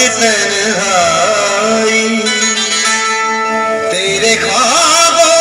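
Music: a song with plucked-string accompaniment and a sliding, ornamented melody line, steadier held notes in the middle.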